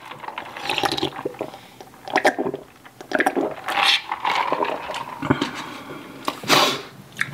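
A person drinking from a foam cup: a run of irregular gulps, slurps and swallows close to the microphone, with a louder burst near the end.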